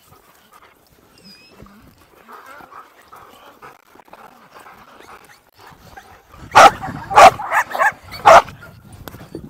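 A pack of dogs barking: a quick run of about five loud barks in the last few seconds, after a quieter start.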